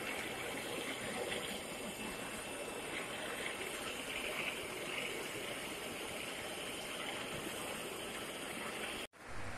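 Walk-behind concrete floor grinder running steadily as its grinding head takes off an old yellow epoxy line marking. It makes an even rushing grinding noise that cuts off abruptly near the end.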